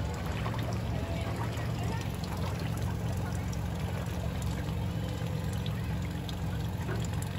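Floodwater sloshing and trickling around a car, over a steady low rumble.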